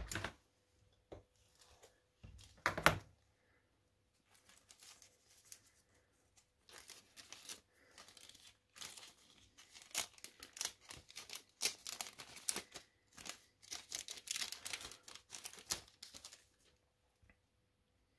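Clear plastic bag crinkling and rustling in bursts as a roll of chart tape is worked out of it, with a single louder knock about three seconds in.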